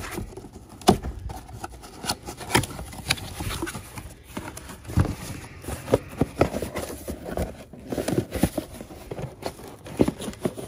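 A cardboard parts box being opened by hand and the part unpacked: irregular knocks, rustles and clicks of cardboard and packaging.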